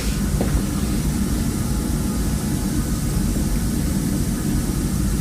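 A steady low rumble that neither rises nor falls, with no distinct events.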